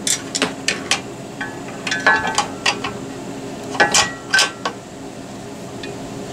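Metal clanks and clinks as a clothes-line extender's metal post and mounting bracket are shifted against a travel trailer's steel bumper. Several sharp knocks come in clusters over the first few seconds, a few ringing briefly, then it goes quieter.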